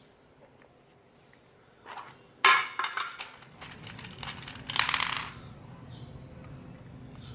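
Hard, metallic-sounding objects clattering and clinking in two bursts about two seconds apart. A low steady hum sets in between them.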